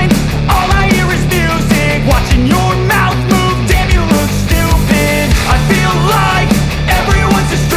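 Loud rock music with a steady beat, heavy bass and a singing voice.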